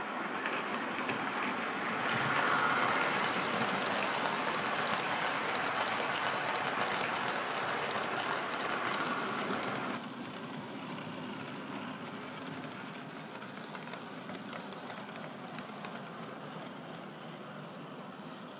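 OO gauge model trains running on the layout's track: a steady rattle of small wheels on rails with fine rapid clicks. It is louder at first and drops suddenly about ten seconds in.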